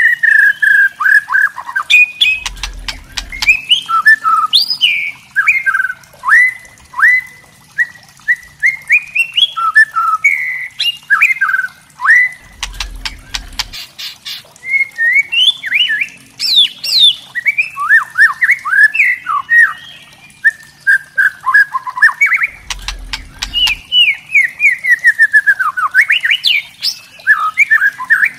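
White-rumped shama (murai batu) singing a continuous, varied song of short sliding whistles, broken up by fast clicking rattles (kretekan). A low rumble comes in three times, about ten seconds apart.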